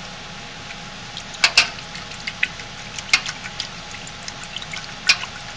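Dial thermometer clicking against the side of a metal pot of liquid lotion, as the lotion's temperature is checked. A few sharp clicks over a steady hiss: a loud pair about one and a half seconds in, another after three seconds and one near the end, with lighter ticks between.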